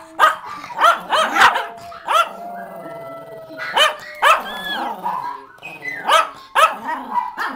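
Small dogs, Chinese cresteds and a Yorkshire terrier, barking sharply again and again, about ten barks, while a long steady howl is held and fades out about halfway.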